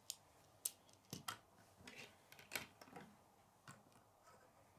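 Faint plastic clicks and taps of K'nex rods and connectors being handled and snapped together, a handful of sharp clicks at irregular intervals.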